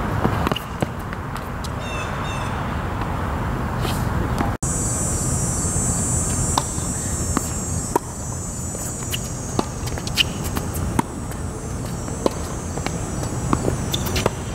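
Tennis rally on an outdoor hard court: sharp pops of the ball off the racquets and its bounces on the court, one every second or so, over a steady low rumble. A bird chirps briefly about two seconds in.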